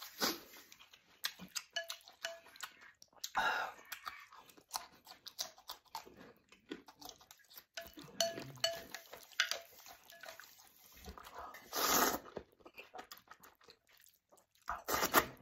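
A man chewing and slurping zhajiangmian noodles close to the microphone: many small wet mouth clicks and smacks, with louder slurps about three and a half seconds in, about twelve seconds in and just before the end.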